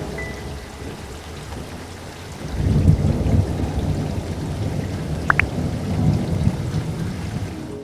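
Steady rain falling, with a low rumble of thunder that swells about two and a half seconds in and rolls on.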